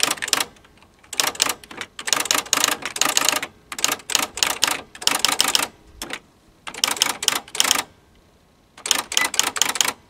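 Packard Bell PB10TX electronic typewriter printing as it is typed on: runs of rapid clattering print strikes, each half a second to a second and a half long, broken by short pauses. A short beep about nine seconds in warns that the end of the line is near.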